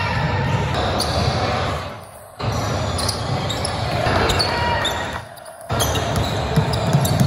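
Basketball game in a gym: a ball bouncing on the court and a few short sneaker squeaks over crowd chatter. The sound drops sharply twice for about half a second.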